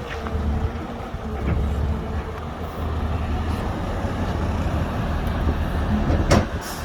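Heavy diesel machinery running with a steady low rumble, and a single sharp clank about six seconds in.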